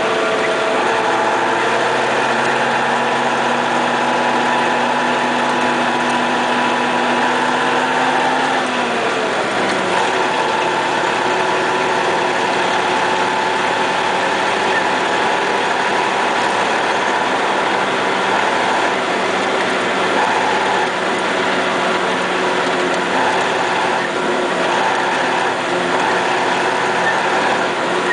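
MAZ snowplough truck's diesel engine running, heard from inside the cab. About nine seconds in its note slides down as the revs drop, then it runs on steadily at the lower pitch.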